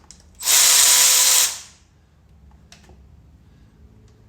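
A cordless power tool with a 10 mm socket spins for about a second, backing out one of the transmission pan bolts. It runs at a steady pitch, followed by a few faint clicks of the bolt and tool.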